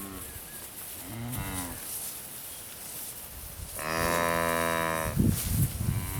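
Beef calves mooing: a short bending moo about a second in, then one long, louder moo near four seconds. Irregular low thumps and rumbling follow near the end.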